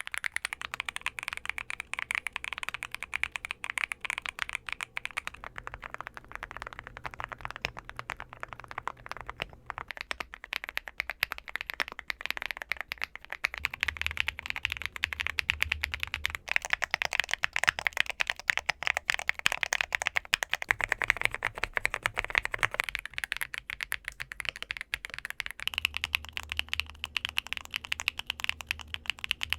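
Fast, continuous typing on a Luminkey60 Pro gasket-mounted 60% mechanical keyboard with Luminkey Astral switches, a dense run of soft key clicks.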